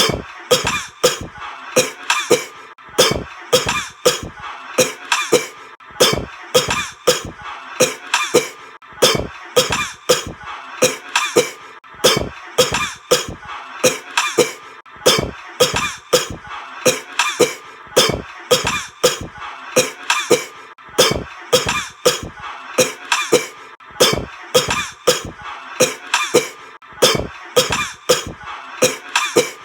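Coughing repeated in a steady rhythm, about two coughs a second, over background music.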